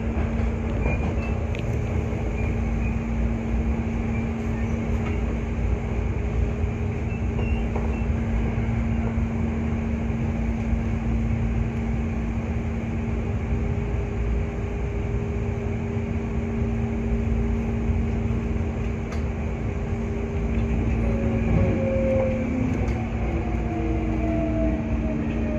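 Hankyu 8300 series electric train heard from the cab, running and pulling into a station. There is a continuous rumble and a steady electrical hum, with several falling whines near the end.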